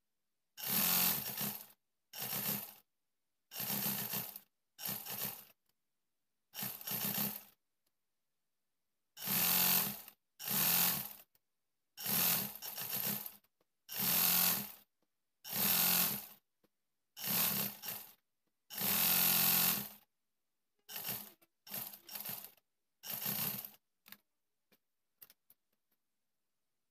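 Black domestic sewing machine stitching fast through fabric in about fifteen short bursts, each about a second long, stopping and starting as the cloth is guided. A few faint clicks near the end.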